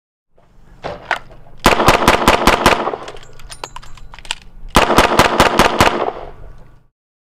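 Double-action revolver fired rapidly, a string of about six shots in about a second, then the clicks and clatter of a fast reload with a full moon clip, then a second string of about six fast shots.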